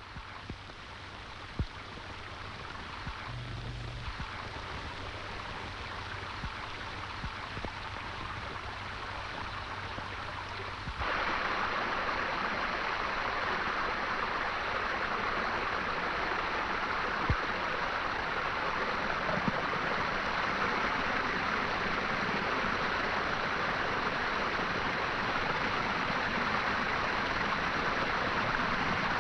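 A faint hiss and low hum, then about eleven seconds in a sudden jump to a loud, steady rush of water as water pours through an opened irrigation sluice gate.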